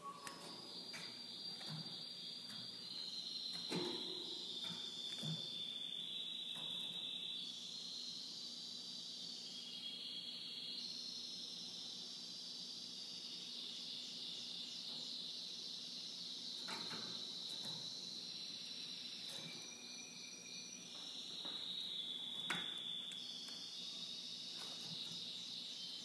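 Young Iranian Hamadani canary singing a long continuous song of high, rapid trills and rolls, switching to a new phrase every second or two. A few sharp clicks sound through it.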